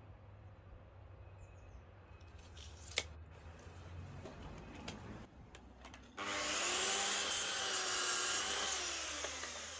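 A sharp click about three seconds in, then a DeWalt sliding mitre saw starts suddenly about six seconds in and crosscuts a length of timber with a steady whine. Near the end the motor winds down, its pitch falling.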